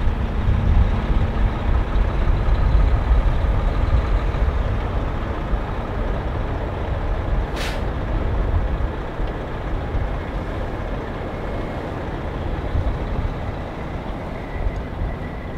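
Semi-truck diesel engine idling, a steady low rumble, with a short hiss of air about halfway through, like an air brake or air valve venting.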